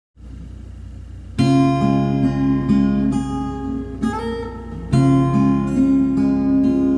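Acoustic guitar playing: a chord strummed about a second and a half in and another near five seconds, with single notes picked and left ringing between them, over a low steady hum.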